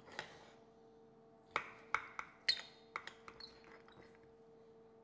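Knife cutting a porterhouse steak next to the bone: a run of sharp clicks and taps from the blade against the cutting surface, starting about one and a half seconds in and dying away by about four seconds, over a faint steady hum.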